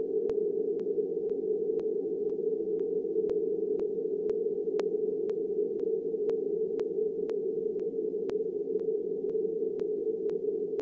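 Steady, muffled rushing noise with a sharp tick at an even pace of about two a second.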